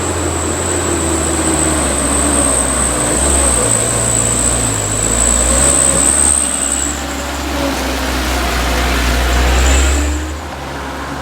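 A vehicle engine running, its low rumble rising and falling in two swells, with a thin high whine over it that stops about seven seconds in. The rumble drops off sharply near the end.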